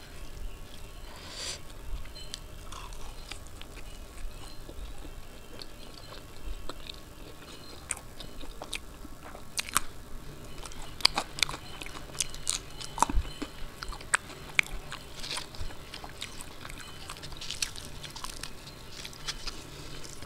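Close-miked chewing and biting of puri dipped in dum aloo potato curry: wet mouth sounds with many sharp clicks, busiest in the second half.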